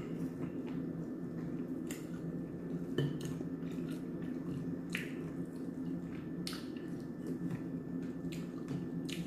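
Someone eating garlic bread: short wet clicks of chewing and the bread being pulled apart by hand, one every second or two, over a steady low hum.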